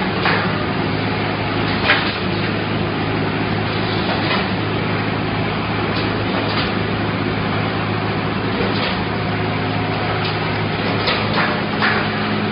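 Wire mesh welding machine running: a steady low mechanical and electrical hum over a noise haze, with irregular short clacks and knocks, the sharpest about two seconds in and several near the end.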